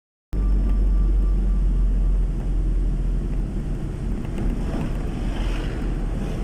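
Steady low roar of rushing water, heavily overlaid by wind rumble on the microphone, starting abruptly just after the start.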